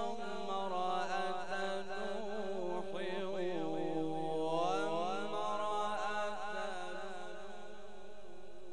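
A man's voice reciting the Quran in slow, melodic tajweed: a long ornamented phrase of wavering held notes with a rising glide about halfway through. The phrase fades out near the end.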